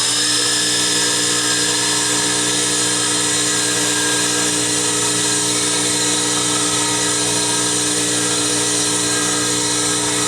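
Motor-driven soft wheel spinning at a steady speed while it takes the small lip off the cut end of a carburetor squirter thread insert: a steady, even whine with several held tones.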